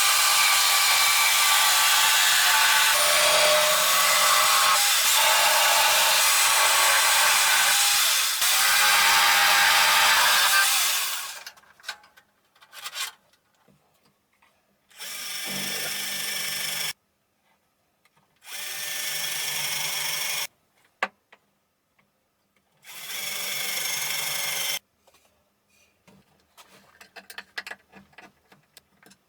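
Electric power tool fitted with a saw blade, cutting wood: one long cut of about eleven seconds, then three short runs of about two seconds each, with light knocks and clicks between them.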